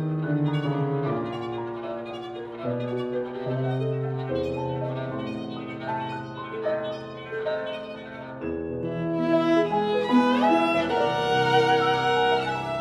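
Viola and grand piano playing classical chamber music: the viola's long bowed notes sound over piano chords. About ten seconds in, the viola slides quickly upward into a louder, high passage.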